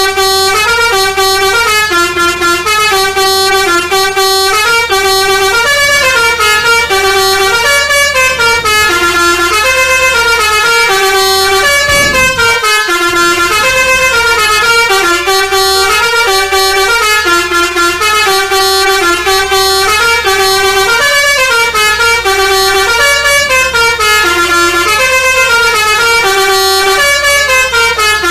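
Basuri musical multi-tone air horn on a vehicle in a convoy playing a continuous 'telolet' melody, quick notes stepping up and down in a repeating tune, over a steady low rumble. About halfway through a brief low falling sweep cuts in under the horn.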